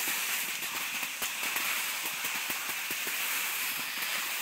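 Skis sliding over packed snow: a steady hiss with many small, irregular crackles and clicks.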